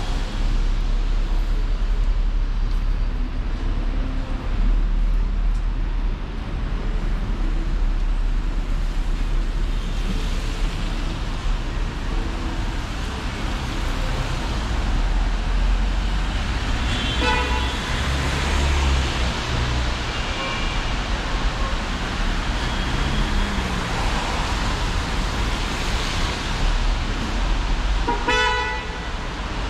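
City street traffic running steadily, with short vehicle horn toots about two-thirds of the way through and again near the end.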